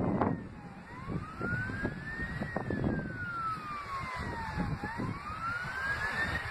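Emergency vehicle siren wailing, slowly rising, falling and rising again in pitch, over the rumble of wind on the microphone.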